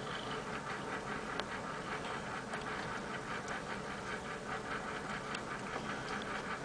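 Cat purring steadily at close range while one cat licks the other's fur, with a fast run of soft ticks from the licking.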